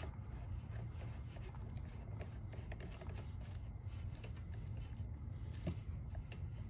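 Faint clicks and light scraping of a drain cap being screwed by hand onto a camper's low-point drain line, over a low steady hum.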